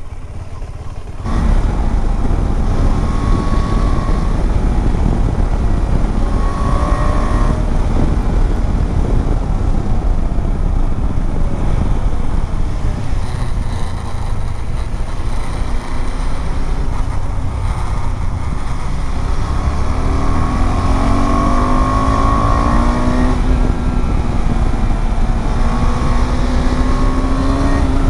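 Motorcycle riding along with heavy wind roar on the microphone, which gets louder about a second in. The engine note is faintly heard under the wind, its pitch climbing a few times in the second half.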